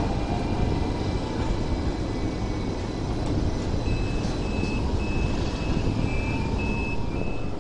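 Steady street rumble of a Hong Kong double-decker electric tram running toward the listener on its street track. Over the second half a faint, high, broken tone comes and goes.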